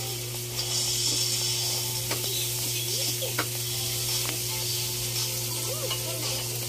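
Steady hiss with a low, even electrical hum. Faint sound from a TV commercial barely shows through.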